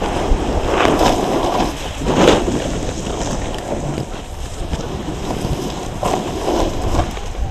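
Wind rushing over the microphone while a snowboard slides across snow, with louder swishing swells about one and two seconds in.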